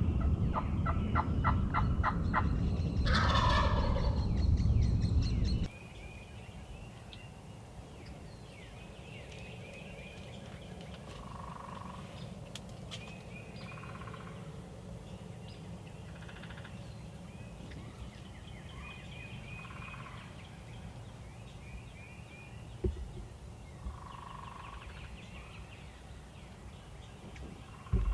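Wild turkey gobbling: a loud, rapid rattling gobble in the first few seconds over a low rumble that cuts off after about five seconds. After that, quieter short calls every few seconds among songbird chirps.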